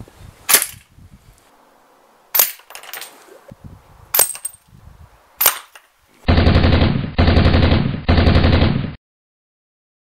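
Air rifle shots: four sharp cracks a second or two apart, some with a brief high ring. Then three bursts of rapid machine-gun-like fire, each about a second long, that stop abruptly.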